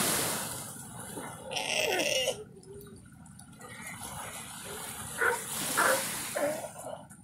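Small waves washing onto a sandy beach, with Galapagos sea lions calling a few times over the surf.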